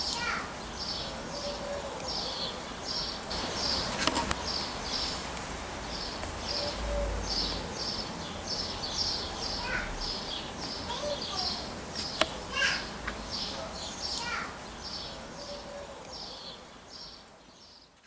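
Birds singing: a steady run of short high chirps, a few each second, with now and then a lower falling call. Two sharp clicks stand out, one about four seconds in and one about twelve seconds in, and the sound fades out over the last few seconds.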